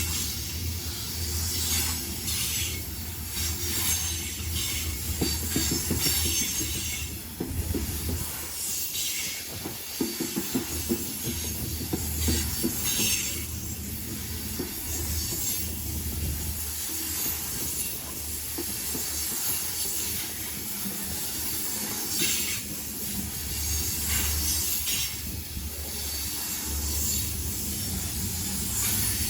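Freight train rolling past with a steady low rumble, its wheels squealing high-pitched on and off, and runs of clacking from the wheels over the rail joints.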